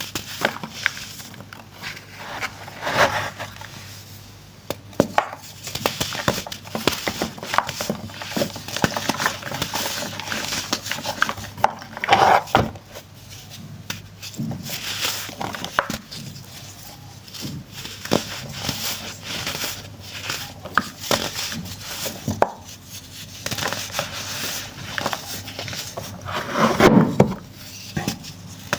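Dry pressed baking soda being crushed and crumbled: a dense run of irregular crackling crunches, with louder crunches now and then.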